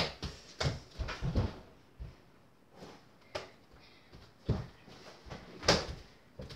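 Irregular thumps and knocks from a mini basketball game: the small ball bouncing and striking the over-the-door hoop and door, with footsteps. Several knocks come close together in the first second and a half, then fewer, with a loud one about five and a half seconds in.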